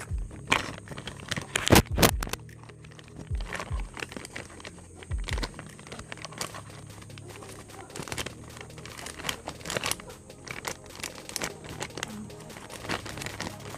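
Plastic packaging crinkling and tearing while a miniature toy kitchen set is unboxed, with many small clicks and rustles of the toy pieces and a few soft thumps in the first few seconds, the loudest about two seconds in. Background music plays underneath.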